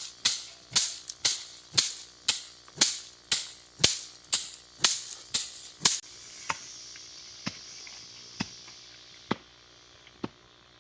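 Harvested soybean plants being beaten to thresh out the beans: sharp, regular strikes about two a second that stop about six seconds in, followed by a faint hiss and a few scattered clicks.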